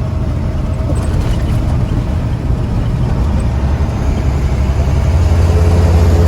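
Steady low engine and road drone heard from inside a moving vehicle, swelling slightly near the end.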